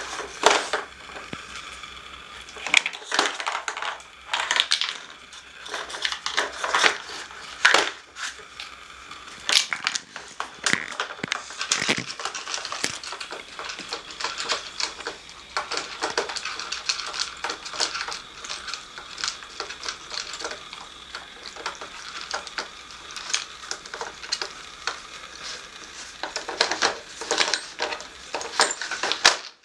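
Dog nosing and pawing a plastic treat puzzle: irregular clicks and clatter of hard plastic lids and pieces, knocking against the board and the wooden floor.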